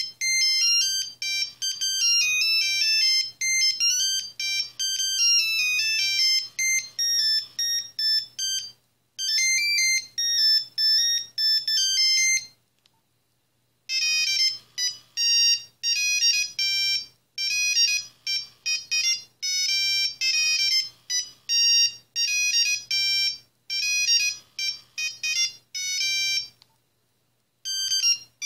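Built-in monophonic ringtones of a Nokia 3310/3330 playing one after another: a beeping melody of about nine seconds, a short tune of about three seconds, a pause, then a fast tune of about thirteen seconds, with the next tune starting near the end.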